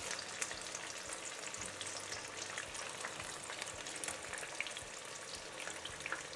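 Flour-coated chicken pieces deep-frying in hot sunflower oil: a steady sizzle dotted with many small pops and crackles.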